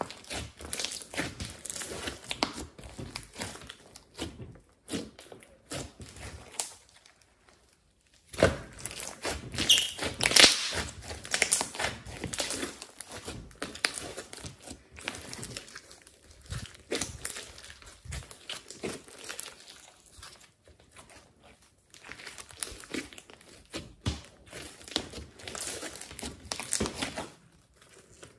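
Glossy slime mixed with clay being kneaded, pressed and stretched by hand: dense runs of wet crackles and pops. The sound comes in three spells, with short pauses about a third of the way in and again about two thirds of the way in.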